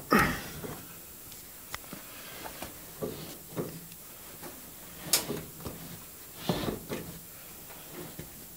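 Laundry being pushed by hand into the drum of a Candy 137 front-loading washing machine: cloth rustling with irregular bumps and knocks. The sharpest is a click about five seconds in.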